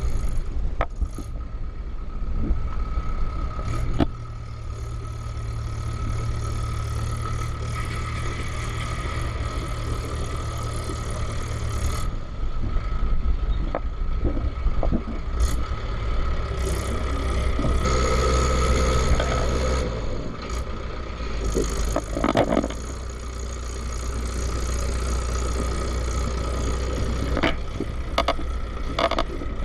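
Vehicle engine running steadily while driving a rough, rocky off-road track, its note shifting several times, with scattered knocks and rattles from the bumps.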